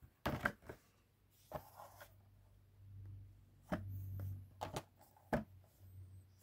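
Die-cast toy car blister packs, cardboard backing with clear plastic bubbles, being handled: a series of sharp clicks and taps as the packs are set down, picked up and turned over, with a low rumble near the middle.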